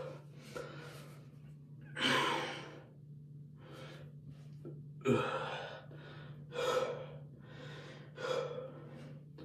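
A young man breathing hard: several sharp, audible breaths in and out, spaced about a second apart, over a steady low hum.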